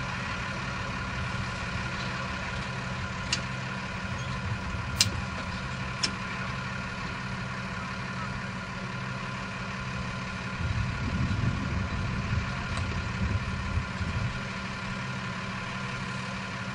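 A vehicle engine idling steadily, with a few sharp metallic clanks. About ten seconds in there is a few seconds of irregular low knocking and rumbling.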